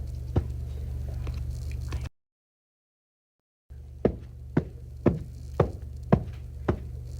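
A run of evenly spaced knocks, about two a second, over a steady low hum. The sound cuts to dead silence for about a second and a half near the middle, then the knocks start again.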